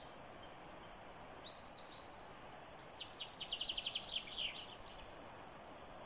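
Songbirds singing in woodland: repeated high, downslurred notes, then a fast trill of rapid notes about three seconds in, over a soft steady hiss.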